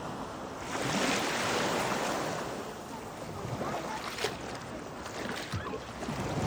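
Sea surf washing, swelling about a second in and easing off again.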